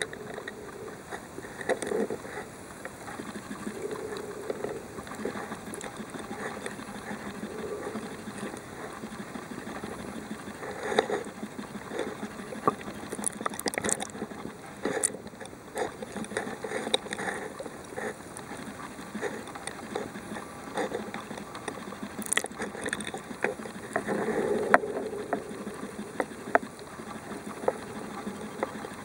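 Muffled underwater sound through a submerged camera: a continuous wash of moving water with scattered sharp clicks and knocks.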